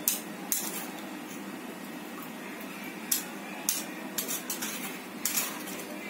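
Steel spoon scraping and clinking against a steel tea strainer as it presses the boiled spices to squeeze out the last of a herbal decoction (kashayam): a string of short metallic scrapes and clinks at irregular intervals.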